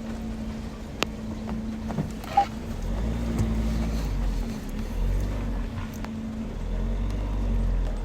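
Steady low rumble with a constant hum, like a vehicle engine running, and a few sharp clicks; the rumble grows stronger about three seconds in.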